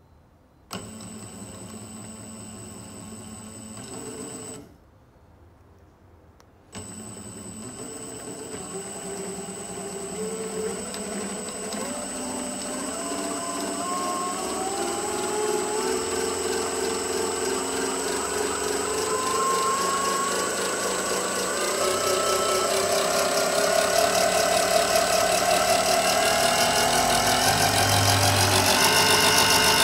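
Electric pre-rotator motor spinning up a gyroplane rotor head through a toothed belt drive. It starts, stops about four seconds in, restarts two seconds later, then accelerates steadily, its whine rising in pitch and growing louder, over a steady high tone.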